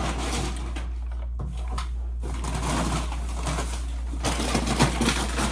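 Close-up eating sounds: chewing and crunching food with scattered rustles and clicks, a louder cluster about four to five seconds in, over a steady low hum.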